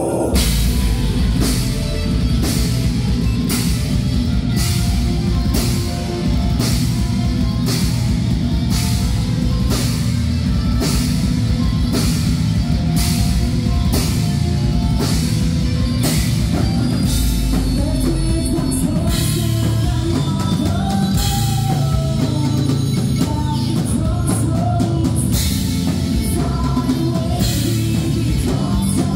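Heavy metal band playing live: electric bass and guitar over a drum kit, with drum and cymbal hits pounding about twice a second, and a singer's voice over the top.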